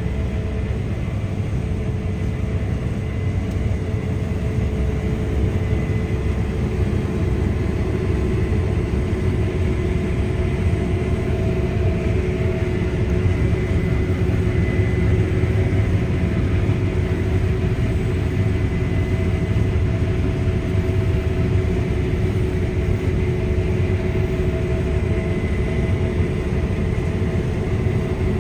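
Combine harvester running steadily under load, a deep engine drone with several steady whining tones from its drives on top.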